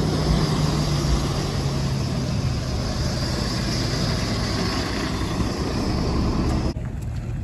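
Lorry tractor unit's diesel engine running as it drives slowly past, a steady hum that sinks slightly in pitch. The sound cuts off suddenly near the end.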